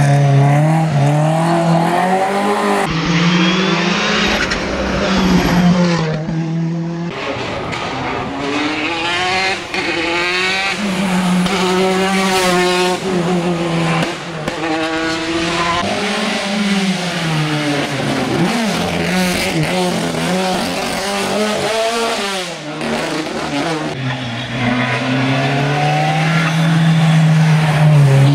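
Racing cars' engines revving hard on a hill climb, the pitch rising through each gear and dropping at every shift or lift. The sound changes abruptly a few times, as one pass gives way to another.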